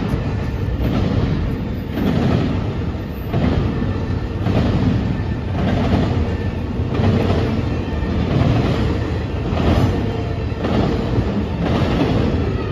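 Intermodal freight train cars rolling past over a street grade crossing: a steady rumble, with the wheels clacking over the rail joints in an even beat just over once a second.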